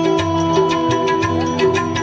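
Instrumental passage of Indian devotional bhajan music: a harmonium holds sustained notes under a melody line, over a steady hand-drum rhythm.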